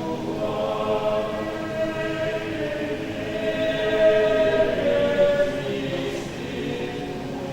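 A Catholic choir singing, holding long sustained notes in several voices, growing louder about four seconds in.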